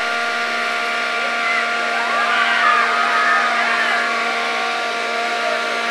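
Electric blower running steadily with a constant hum, its air stream blowing out the streamers; faint children's voices underneath.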